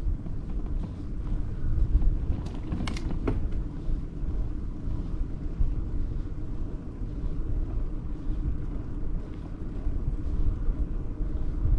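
Wind rumbling on the microphone of a camera riding on a moving bicycle, over steady road and tyre noise, with two short clicks about three seconds in.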